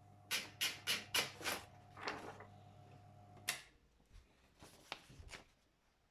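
Brother 4612 electric typewriter with its motor humming while about five quick, sharp strikes land at roughly four a second, followed by two more. About three and a half seconds in, a loud clack comes and the motor hum stops, leaving a few softer clicks and knocks.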